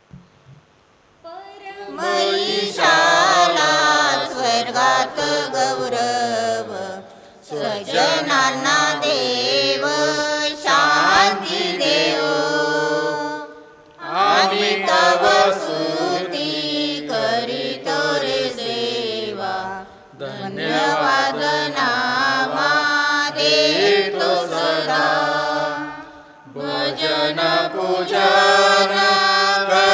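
Male voices singing a liturgical chant of the Mass in phrases of about six seconds, five phrases with short breath pauses between them.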